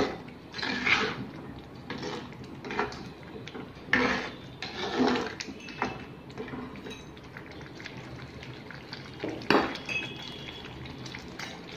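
Steel ladle scraping and knocking against an earthenware pot while stirring a thick, wet garlic and tamarind paste, in a few irregular strokes with pauses between them.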